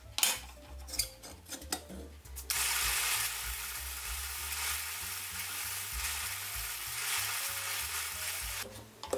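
A few clicks and knocks of metal parts being handled, then from about two and a half seconds in a steady abrasive hiss lasting about six seconds as a small brass collar is held against a running vertical belt sander to square its edge true.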